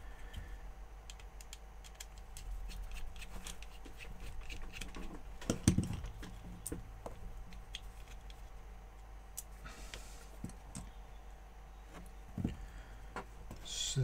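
Small plastic clicks and taps from a compact APEM joystick being prised apart by hand, its housing separated from the lever unit. The clicks come irregularly, with a louder knock about halfway through and another near the end.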